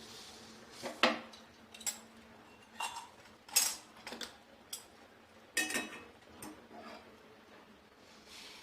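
Kitchen utensils clinking and knocking: about eight separate sharp knocks spread over several seconds. These are the sounds of a pot of freshly boiled herbal decoction being handled and strained into a glass.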